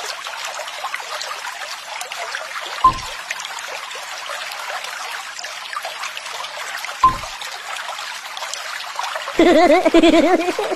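Water trickling and bubbling steadily, with two short plops about three and seven seconds in. A brief wavering, warbling tone comes near the end.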